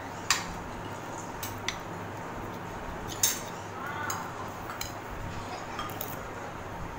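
Spoons and forks clinking and scraping against ceramic dinner plates during a meal: a handful of short, sharp clinks, the loudest about three seconds in, over a steady low hum.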